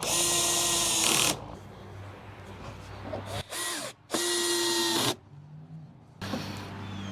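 Cordless drill/driver driving long drywall screws through 2x4 lumber. The motor whines in bursts: one run of about a second at the start, a short blip, then another run of about a second.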